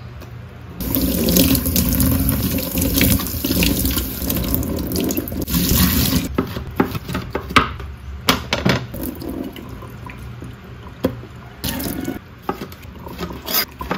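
Kitchen tap running into a stainless steel sink as squid are rinsed under it. The water stops about six seconds in, and what follows is scattered short wet knocks and splashes from handling the wet squid.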